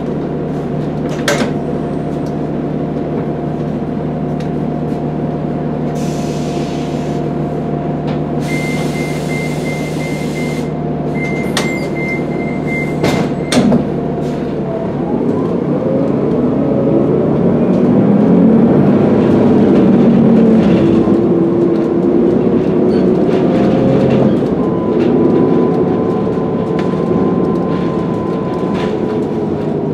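2016 Gillig Advantage diesel bus with a Cummins ISL9 engine idling steadily at a stop, with bursts of air hiss and a rapid high beeping. About halfway through the engine note rises as the bus pulls away, its Allison automatic transmission taking it up through the gears.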